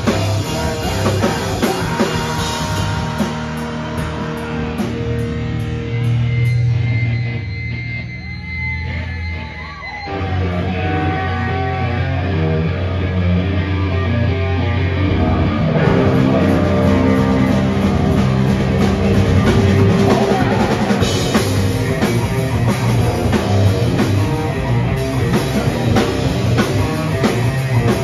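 Live metal band playing: distorted electric guitar, bass guitar and a drum kit. The music thins out briefly about a third of the way in, then the full band comes back in and the drumming gets busier with fast, steady cymbal hits from about the middle on.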